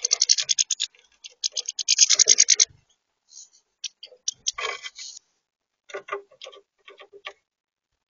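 Goldfinches pecking seed and scratching their feet on a plastic feeder tray close to the microphone: two rapid runs of sharp clicks, about ten a second, in the first three seconds, then scattered taps and short clusters.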